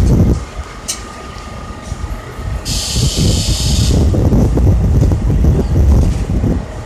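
R32 subway train rumbling slowly along the elevated track. A burst of air hiss from its brakes starts about three seconds in and lasts about a second.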